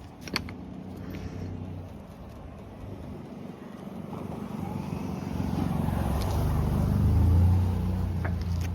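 A passing road vehicle's engine, growing louder to a peak a little past the middle and then fading. A single sharp click sounds just after the start.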